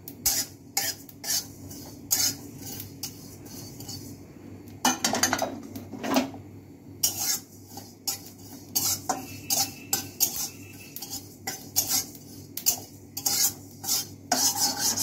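Metal spatula scraping and clinking against a steel kadai in quick, irregular strokes, stirring cumin seeds that are dry-roasting with no oil, so there is no sizzle.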